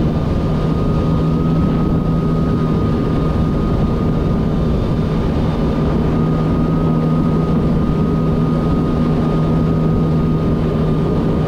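Kawasaki Ultra 310 LX jet ski's supercharged four-cylinder engine running steadily at cruising speed, about 48 km/h, with a steady high whine over the engine drone. The low engine note fades out near the end as the speed begins to drop.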